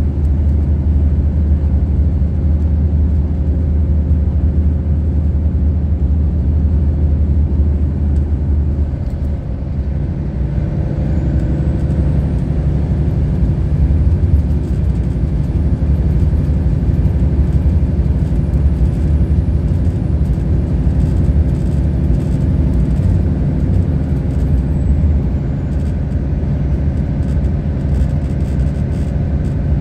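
Cabin noise of a Volvo 8500 B12BLE bus at motorway speed: its straight-six diesel engine drones steadily under the rush of tyres on the road. The drone shifts in pitch about nine seconds in. A faint high whine rises about eleven seconds in, holds, and falls away near the end.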